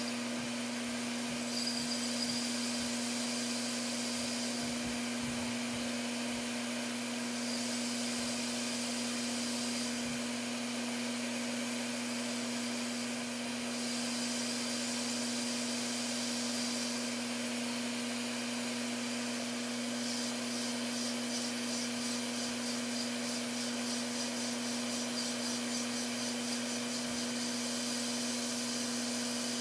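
Hot-air rework station blowing steadily onto a laptop logic board to heat a chip for desoldering: an even rush of air with a constant low hum beneath it.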